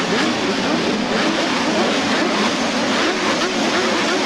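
A grid of racing motorcycles with their engines running and revving up and down together, many engine notes rising and falling over one another while they wait for the start.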